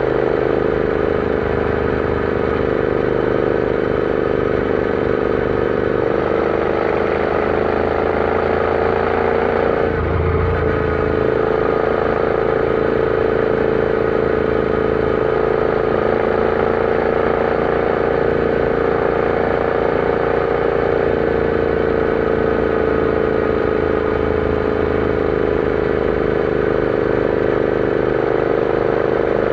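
Royal Enfield Interceptor 650's parallel-twin engine running under way at steady road speed, its pitch rising gently, breaking briefly about ten seconds in, then holding steady.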